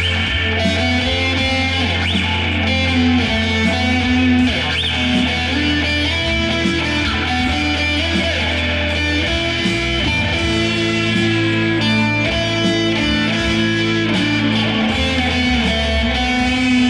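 Electric guitar playing long, sustained notes with pitch bends over a steady low drone. The drone shifts pitch about halfway through and again near the end.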